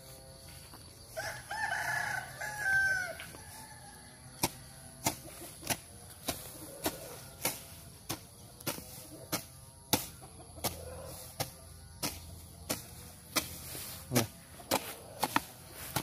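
A rooster crows once, for about two seconds. Then come steady, regular sharp knocks, about one every half second or so.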